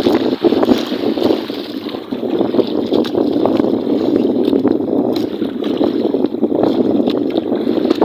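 A fishing boat's engine running steadily, a continuous dense drone.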